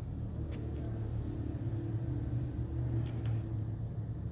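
Steady low hum or rumble, with a few faint light taps and clicks from hands handling a laptop, about half a second in and around three seconds in.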